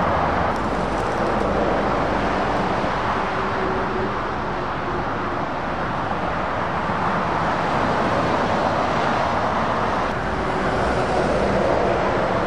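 Steady motorway traffic: the rushing tyre and engine noise of lorries and cars passing at speed, swelling and easing as each vehicle goes by.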